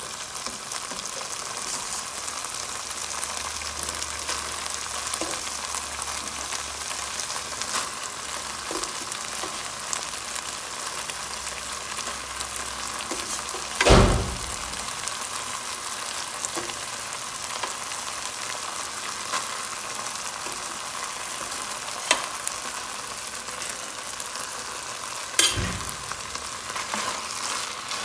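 Rice and peas sizzling in butter in a non-stick frying pan, stirred with a wooden spoon. A loud thump about halfway through as more food goes into the pan, and a smaller knock near the end.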